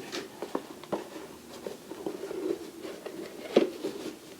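Light clicks and taps of small hard parts being picked up and handled at uneven intervals, with one louder knock about three and a half seconds in.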